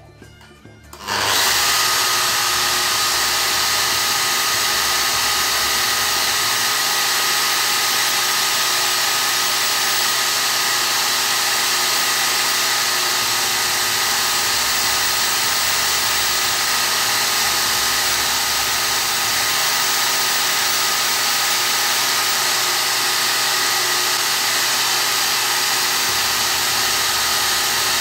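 Bosch GWS 9-125 S angle grinder switched on about a second in and running steadily at speed with a thin steady whine. It is driving a flexible shaft whose diamond burr grinds inside the jaw of a steel spanner.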